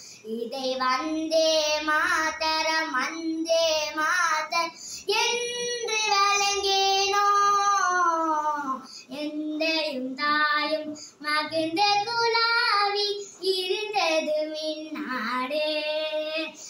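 A young girl singing solo without accompaniment: a melody in phrases of held notes, with one long note near the middle that slowly falls in pitch.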